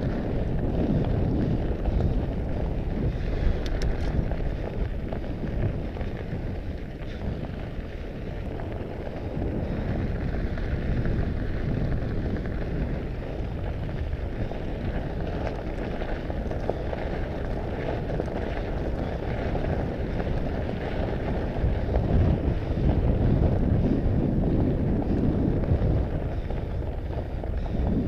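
Wind buffeting an action camera's microphone while a Mondraker Panzer fat bike rolls along a gravel track, its wide tyres crunching over the loose stones. The rush grows louder about three quarters of the way through.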